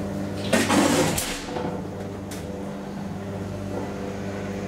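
DEVE hydraulic elevator's pump motor humming steadily after the up button is pressed. The car doors slide shut with a loud brief rush about half a second in, and there is a click a little after two seconds.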